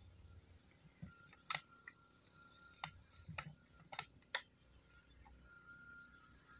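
A clear plastic jar being handled over dry leaf litter: a handful of sharp, separate clicks and crackles, quiet overall. A faint steady high tone runs beneath them, and there is a short rising chirp near the end.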